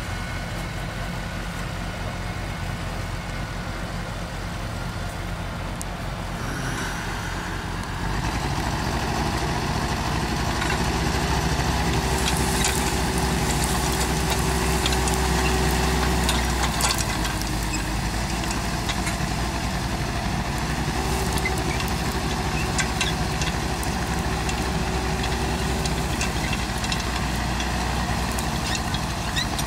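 Diesel engine of a forestry forwarder running, stepping up in level about eight seconds in as the machine moves onto its steel bogie track, with a higher whine that comes and goes twice and scattered metallic clanks of the track plates.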